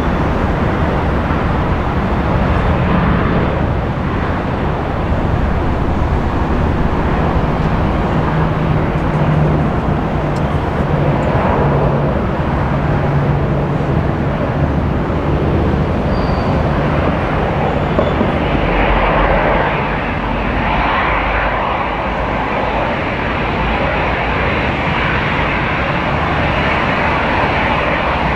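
Airbus A320-211's twin CFM56 turbofan engines running steadily at taxi thrust as the airliner taxis. The hiss and whine grow stronger about two-thirds of the way through, as the engine intakes turn toward the listener.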